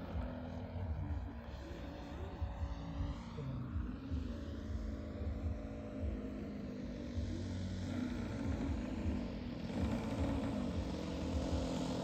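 Radio-controlled model plane's EME 60cc single-cylinder two-stroke petrol engine with a canister muffler, running throttled back on the approach to land. The faint drone wavers up and down in pitch and grows louder near the end as the plane comes down close.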